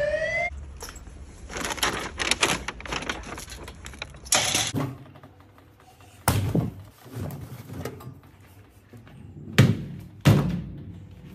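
A siren's wail cuts off in the first half second, then clothes are handled and pushed into a Samsung EcoBubble front-loading washing machine with scattered clicks and rustling. Its door is pushed shut near the end with two sharp knocks.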